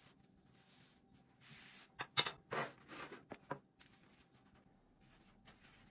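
Thin phyllo dough rustling and crinkling in a handful of short, sharp bursts, about a third of the way in, as it is pushed together along a thin rolling pin and slid off into a baking tray for burma baklava.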